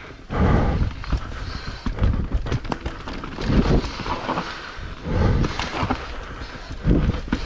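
Mountain bike riding over a wet trail: the rider's heavy breathing swells about every one and a half seconds, over tyre noise, rattles and clicks from the bike, and wind rumbling on the microphone.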